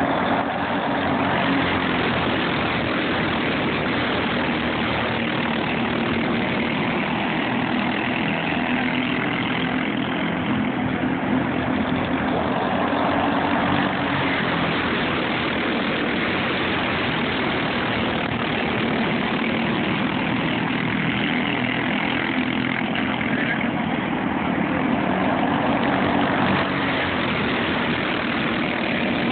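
Several racing go-kart engines running together at speed as the karts lap the track, a steady overlapping engine sound that swells a little as karts come past.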